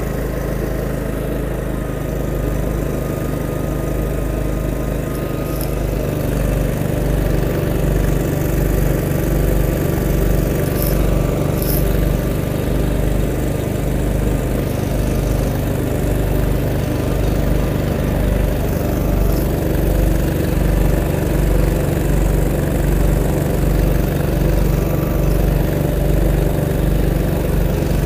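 Toro Dingo compact utility loader's engine running steadily under load while its snowblower attachment throws snow. About six seconds in, a low rhythmic throb sets in and the sound grows a little louder.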